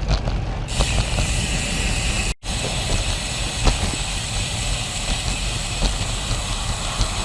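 Wind rumbling on a GoPro's microphone, with tyre and road noise from a road bike being ridden. The hiss grows brighter under a second in, and the sound drops out briefly a little over two seconds in.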